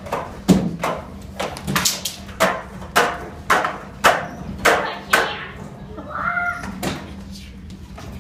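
A run of sharp knocks and thumps echoing in a large hall, about two a second, easing off after about five seconds, with a brief high call about six seconds in.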